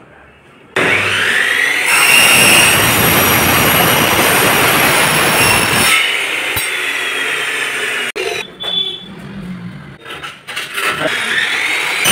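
Electric compound miter saw with a toothed blade cutting aluminium door-frame profile: the motor starts with a rising whine about a second in, then the blade cuts through the aluminium loudly for about four seconds with a steady high ringing. It eases off after the cut and near the end spins up again for the next cut.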